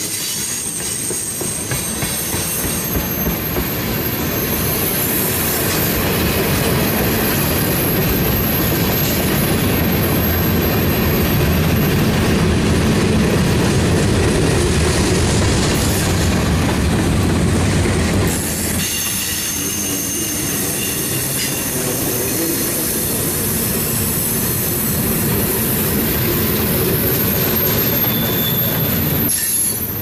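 Freight cars (tank cars, covered hoppers and boxcars) rolling past at speed: a steady rumble of steel wheels on rail with thin, high-pitched wheel squeals on and off. The sound drops away right at the end as the last car passes.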